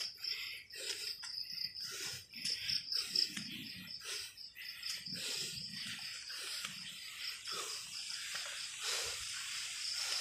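An insect trilling in a high, steady pulsing tone in the background, over irregular rustling and scuffing noises.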